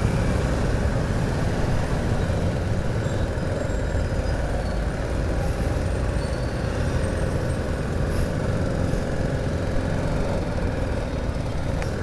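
BMW GS adventure motorcycle being ridden slowly through town traffic: a steady mix of engine, road and traffic noise with no sharp events.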